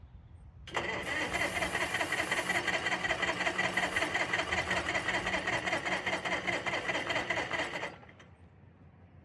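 Electric starter cranking the two-cylinder gasoline pony motor of a Caterpillar D4-7U crawler in a rapid, even rhythm for about seven seconds, then stopping abruptly. The motor does not catch despite a shot of starting fluid, with a battery too weak to crank it well.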